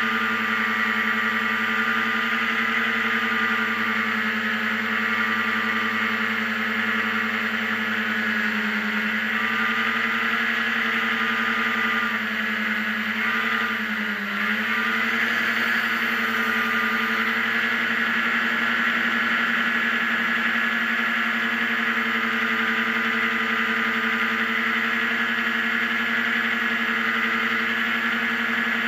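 Racing hovercraft engine and fan running steadily at high revs, heard from on board with a rushing hiss of air. The pitch dips briefly about halfway through, then comes back up.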